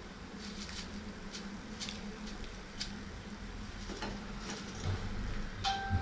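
Faint, scattered crackling of still-hot frying oil in a kadhai, with light clinks of a wire skimmer as fried gram-flour crisps are scooped out. Near the end a metal fork knocks the pan with a short ringing clink.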